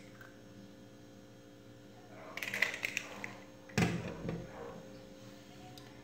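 Hands working with eggs: a faint crack as an eggshell is pulled apart over a glass bowl, then a light rattling clatter about two and a half seconds in, and a dull knock near four seconds in.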